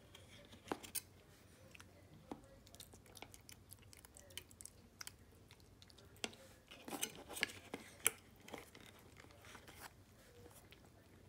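Siamese cat chewing and licking soft wet food off a plastic spoon: faint, irregular wet clicks, with a run of louder clicks about seven to eight seconds in.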